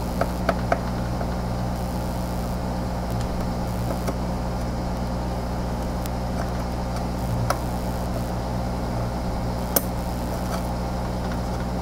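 Hot air rework station's blower running with a steady hum and rush of air. A few light clicks sound over it, the sharpest near the end.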